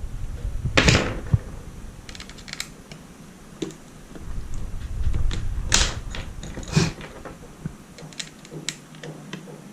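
Sharp plastic clicks and light ticking from hands working on the parts inside an opened laptop, with three louder clicks about a second in, near the middle and a second later.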